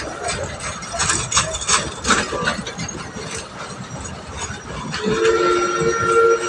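Train running with irregular metallic clanking of the cars, then the train's whistle sounding a steady chord about five seconds in.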